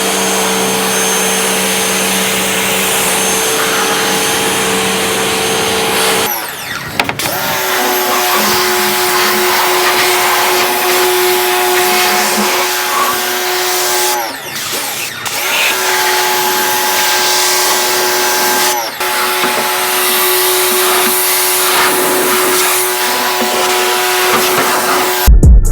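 Pressure washer running and spraying: a steady motor hum under a hissing spray. Its motor dips and slows briefly three times before picking up again.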